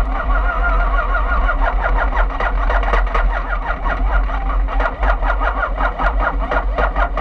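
Formula E single-seater's electric drivetrain whining as it rolls slowly, the high whine wavering up and down in pitch, with a rapid regular ticking from about a second and a half in.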